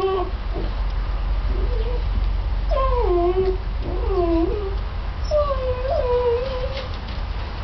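Mastiff puppies whining during play: three high, wavering whines that dip and rise again, about a second apart, the last one longer, over a steady low hum.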